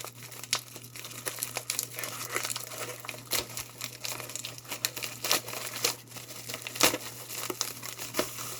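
A mail package being torn open by hand, its wrapping crinkling and crackling in quick, irregular bursts.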